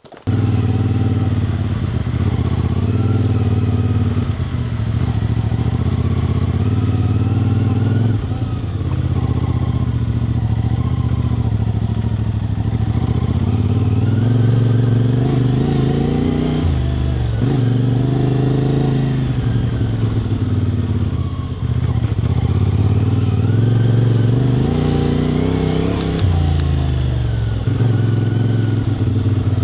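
Motor vehicle engine running loud and close, cutting in abruptly and holding a steady drone, its pitch dipping and climbing back several times as the throttle changes.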